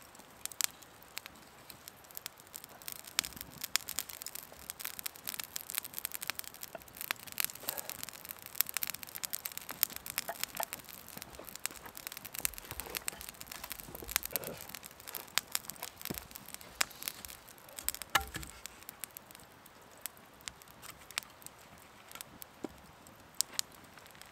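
Wood campfire crackling, with a dense run of irregular small pops and snaps and one louder knock late on.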